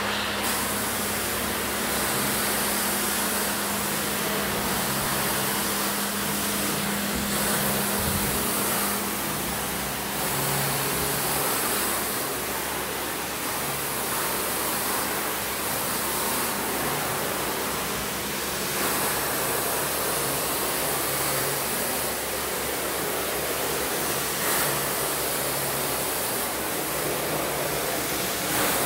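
Wet vacuum running, with a steady hum and rushing hiss as its floor tool sucks soapy cleaning solution off a tiled floor.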